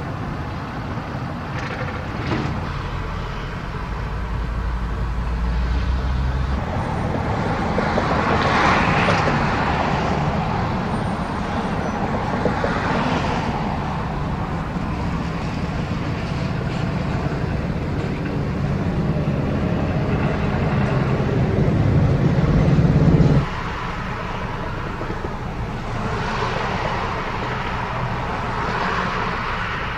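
Highway traffic passing close by: pickup trucks, one towing a large trailer, and cars drive past with engine and tyre noise that swells and fades with each vehicle. A heavy low engine rumble builds through the middle and cuts off suddenly about two-thirds of the way through.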